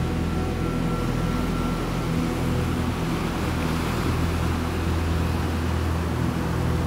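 Slow ambient background music of held low chords that change every couple of seconds.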